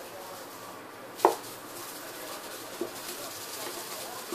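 Knocks on a cardboard box as a cat pounces at a tinsel wand toy inside it: one sharp knock about a second in, the loudest, then two lighter taps.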